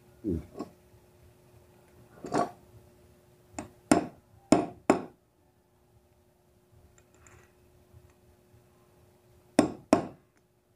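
Hammer striking a punch set against a bicycle rear hub to drive out its crushed sealed bearing: sharp metallic knocks in short groups, about six in the first five seconds, then a pause and two more near the end.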